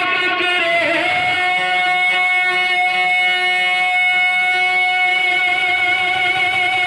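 Naat recital: a man's amplified voice holding one long, steady note for several seconds, starting about a second in.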